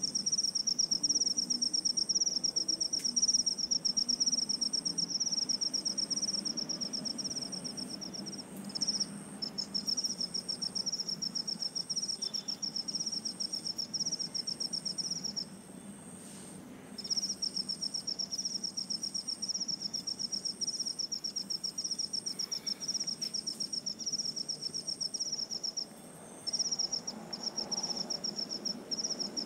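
Insects chirping: a high, fast pulsed trill that carries on with a few short breaks. Over it a fainter, higher chirp repeats about once a second and stops near the end.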